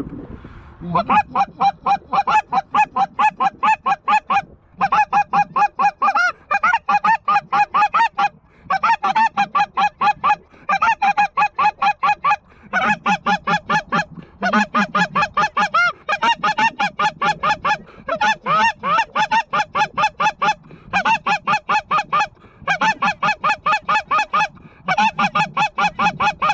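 Snow goose calling: rapid honks repeated many times a second, in runs of a few seconds broken by short pauses.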